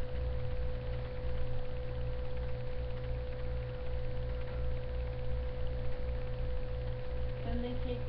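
Steady electrical hum picked up by the recording, with a low drone and a constant steady tone above it. A woman's voice starts near the end.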